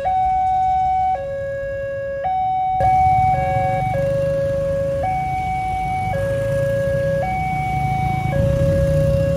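A railway level-crossing warning alarm sounds a two-tone signal, switching between a higher and a lower tone about once a second, which means the barrier is down and a train is approaching. The pattern briefly stutters around three seconds in. From then on, idling motorcycle and car engines rumble underneath.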